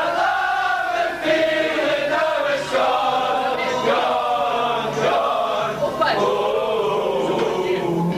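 A group of men singing together, many voices in unison, with the long held notes of a chanted song.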